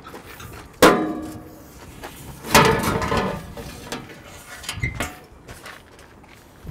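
Metal grain-vac conveying pipe clanking against the steel pipe rack as it is pulled out: two ringing metallic knocks about two seconds apart, the second louder and longer with a scraping slide, then a lighter knock.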